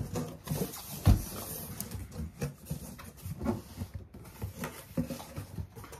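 Large cardboard box being handled and its flaps opened: scraping, rustling and knocks, with a loud thump about a second in.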